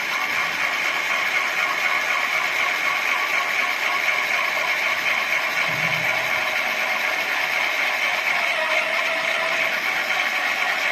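Small geared electric motor of a PLC-controlled automatic drilling machine model running steadily with a high whine, as the machine works through its automatic cycle between the third and fourth holes.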